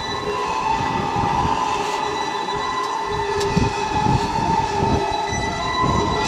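A steady drone of several held tones over a rough, fluttering low rumble.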